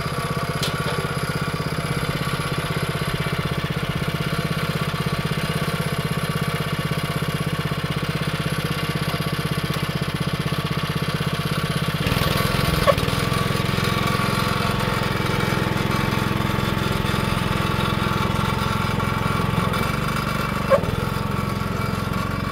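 Small petrol engine of a tracked motorized wheelbarrow idling steadily, then about twelve seconds in picking up revs and running under load as the machine drives off over the soil, with a couple of short knocks.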